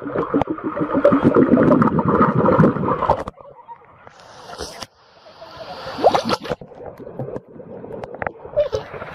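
Water gurgling and sloshing, muffled by the microphone being at and under the surface, as a horse's muzzle dips into the river; dense and loud for about three seconds, then cutting off to quieter, scattered sloshing.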